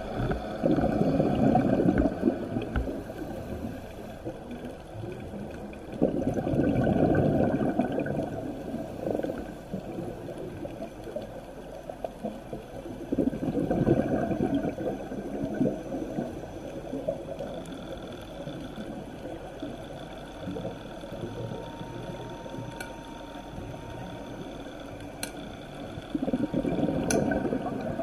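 A scuba diver's exhaled breath bubbling out of the regulator, heard underwater. It comes in four surges of rushing, gurgling noise, about six to seven seconds apart, with a longer pause before the last.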